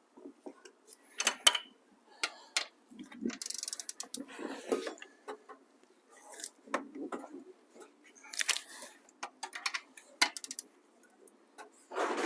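Ratchet wrench clicking in short runs, with metal clinks of the socket on the bolts, as the cylinder head bolts are turned through their final angle in 45-degree swings. There is a quick run of ratcheting about three and a half seconds in and a louder clank at the very end.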